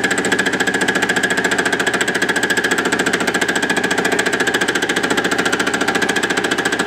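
Milling machine fly-cutting a cam profile with an offset boring head in steel drill rod. It is an interrupted cut: the single cutter strikes the work as it sweeps past on each turn, making a rapid, even clatter over the machine's steady whine.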